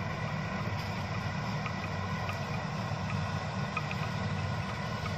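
Kubota DC-70 Plus rice combine harvester running steadily while cutting rice: a low, even diesel drone with fainter steady higher tones from the machinery.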